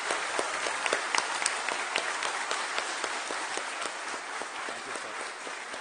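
Applause: many hands clapping in a dense patter, with a few louder claps in the first couple of seconds, easing off a little toward the end.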